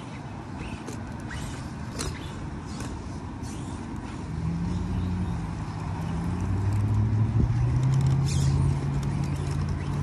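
Hobbywing Fusion 1800kv brushless motor and geartrain of an Axial Capra RC rock crawler working under load as it climbs rocks, a low steady whine that comes in about four seconds in and grows louder as the crawler nears. A few sharp clicks of the chassis and tyres on stone earlier on.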